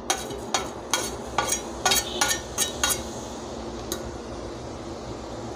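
Cumin seeds frying in hot oil in a steel kadai. A quick run of sharp pops and crackles for about the first three seconds settles into a steady sizzle as the seeds froth.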